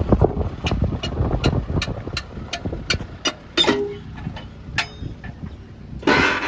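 Metal tailgate latch of a loaded tractor trailer being knocked loose by hand: a run of sharp metal taps, about three a second, then a few single knocks and a louder noisy burst near the end. A low engine rumble fades out over the first second or so.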